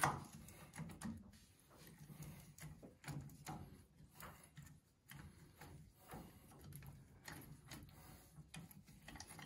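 Faint, irregular metallic clicks and taps of a socket on a long extension bar working the front wheel hub nut loose on a 1974 David Brown 995 tractor. A sharper knock comes right at the start.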